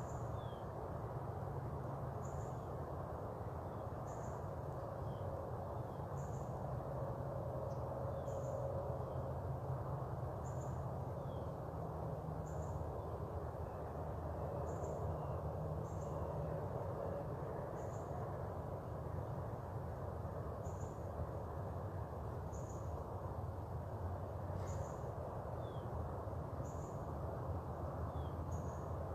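Outdoor morning ambience: a steady low rumble underneath, with a faint, short, high-pitched chirp repeating about every two seconds and a few softer calls between.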